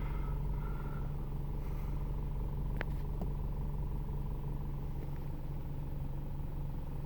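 Car engine idling steadily, a low even hum, with a faint click about three seconds in.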